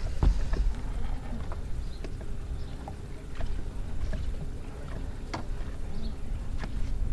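Water slapping against a small fishing boat's hull over a steady low rumble, with scattered light knocks and clicks.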